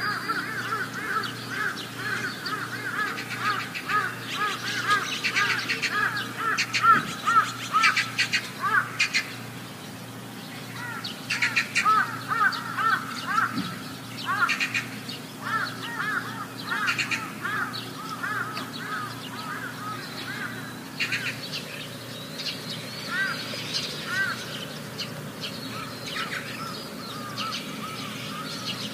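Birds chirping and calling, many short repeated calls overlapping, busiest in the first half and sparser toward the end, over a steady low hum.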